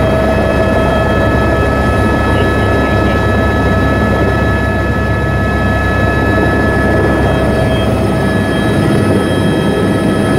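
Airbus AS350 A-Star helicopter heard from inside its cabin as it descends to land. The turbine engine and rotor make a loud, steady noise, with several steady high whines over a deep rumble.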